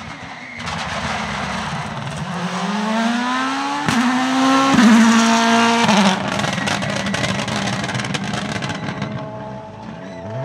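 Rally car engine accelerating hard past, its revs climbing to a sharp crack near four seconds in, then running at a lower pitch through its loudest stretch before the revs drop and the sound fades away.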